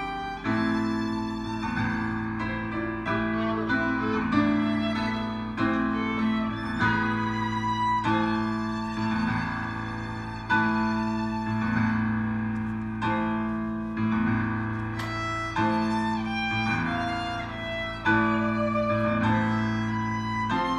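Violin and electric keyboard playing a slow hymn together: the bowed violin carries the melody over sustained keyboard chords and bass notes, with a new note about every second.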